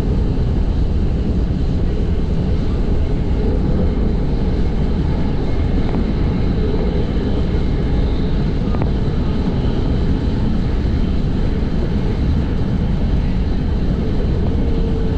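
NJ Transit commuter train running steadily, heard from inside the passenger car: a continuous low rumble of wheels on rails and car body. A faint falling whine rises out of it briefly near the end.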